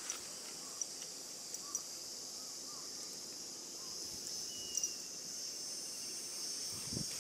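Steady high-pitched chorus of insects trilling outdoors, with a few faint short clicks and light rustling in the grass.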